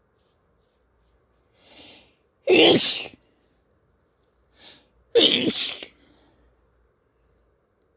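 A person sneezing twice, about two and a half seconds apart, each sneeze preceded by a short, quieter intake of breath.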